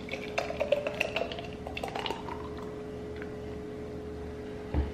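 A drink pouring from a plastic pitcher into a glass jar, with a pitch that rises as the jar fills over about two seconds. A dull thump comes near the end.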